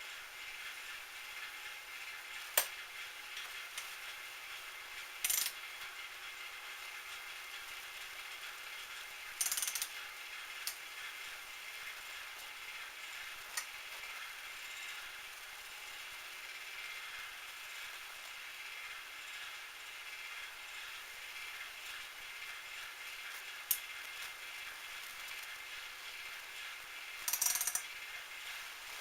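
Metal lathe running steadily, its geared drive giving a whine of several steady tones. A few short clicks and brief scraping sounds come now and then over it.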